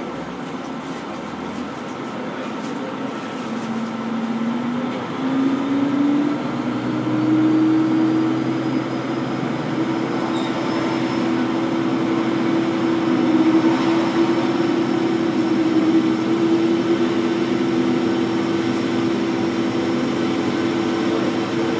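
Diesel engine of a KiHa 40 railcar, heard from the seat directly above it, running under the floor with steady running noise. About four to six seconds in, the engine note steps up in pitch and grows louder, then holds a steady higher note.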